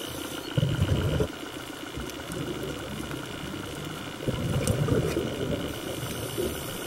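Underwater sound picked up through a camera: a steady high whine, with two bursts of low bubbling rumble, each about a second long, near the start and about four seconds in.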